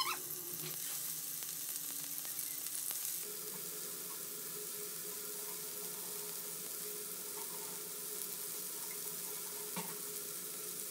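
Marinated chicken pieces shallow-frying in hot oil in a pan: a steady, even sizzle.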